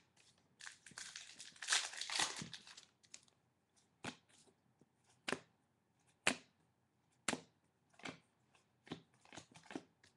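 Football trading cards being handled and flipped through: a stretch of rustling and crinkling a second or two in, then sharp single snaps about once a second as each card is flicked off the stack and set down.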